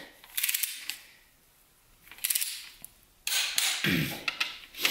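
Torque wrench ratcheting on the connecting-rod cap bolts of an LS V8 short block, in three short bursts of metal clicks.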